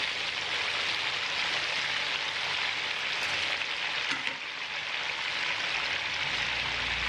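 Pork leg slices deep-frying in hot oil in a pan, a steady sizzle that dips slightly in loudness about halfway through.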